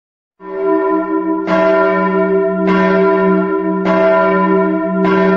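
A single church bell tolling, struck five times at a slow, even pace about a second apart, each stroke ringing on under the next.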